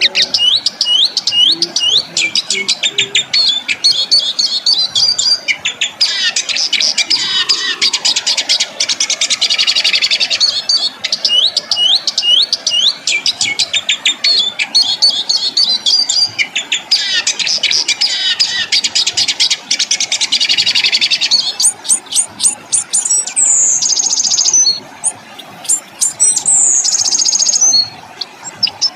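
A songbird singing a fast, harsh song: runs of rapid hooked chattering notes break twice into long dense rolling trills, and near the end come a few sharp falling whistles.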